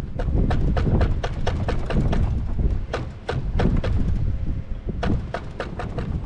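A quick run of sharp clicks or knocks, about four a second, through the first four seconds, then a shorter run near the end, over a steady low rumble of wind on the microphone.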